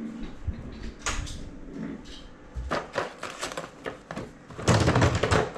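A desk drawer open, with hands rummaging through the small parts inside it: a run of clicks and rattles, loudest for about a second near the end.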